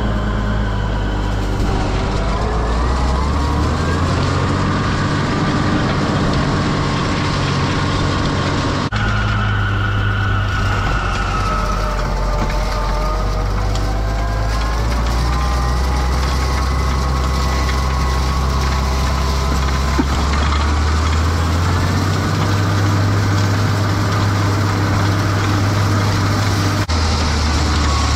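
Tractor engine running steadily while raking hay, its pitch drifting slowly up and down. The sound changes abruptly about nine seconds in and again near the end.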